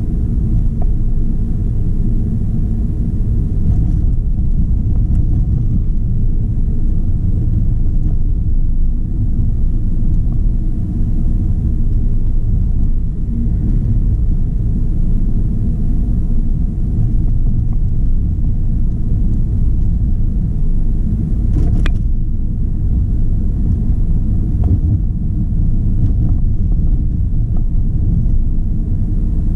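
Steady low rumble of a car driving on a city street, tyre and engine noise heard from inside the cabin. A single brief click about three-quarters of the way through.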